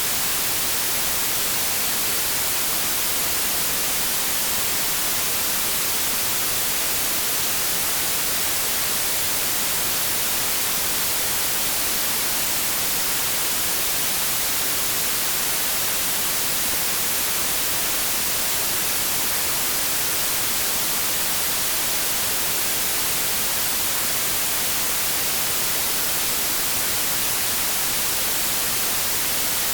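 Continuous synthetic white noise: a steady, even hiss that does not change.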